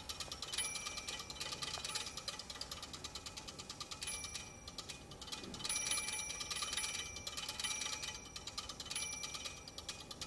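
Improvised sound-making: a fast, dense run of clicks with short, high bell-like pings every second or so.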